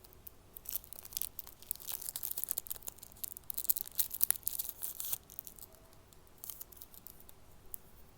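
Dense crinkling and crackling handling noise for about four seconds, then a few scattered crackles.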